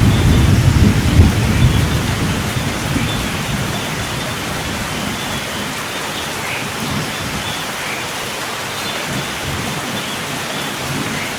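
Steady rain falling, with a low rumble of thunder that fades away over the first few seconds, leaving the rain alone.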